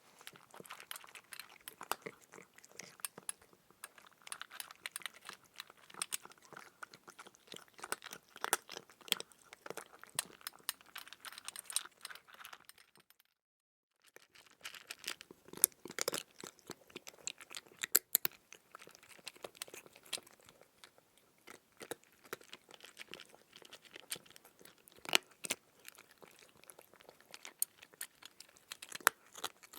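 A cat eating: dense, irregular crunching and chewing clicks. They break off for about a second midway, then carry on.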